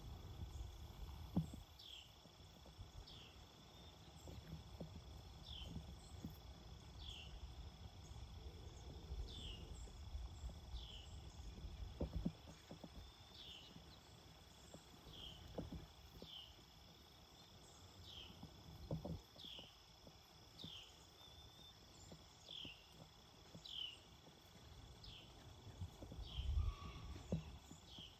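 Faint morning outdoor sound: a bird repeats one short, falling note about once a second over a steady high trill of insects. A low rumble runs underneath, with a few soft thumps.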